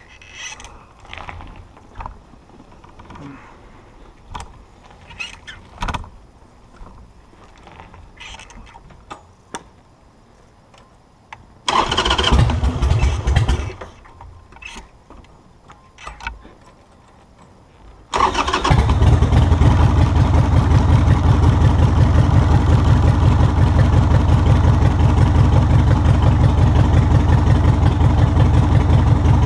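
Air-cooled Evolution V-twin of a 1999 Harley-Davidson Sportster 1200C being started. First come faint clicks and knocks, then about twelve seconds in a short, loud burst of starting that does not keep running. About six seconds later the engine fires and settles into a steady idle with an even pulse.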